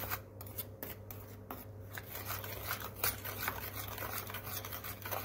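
Metal spoon stirring custard powder and a little water into a paste in a stainless steel bowl, with irregular scrapes and taps against the steel over a steady low hum.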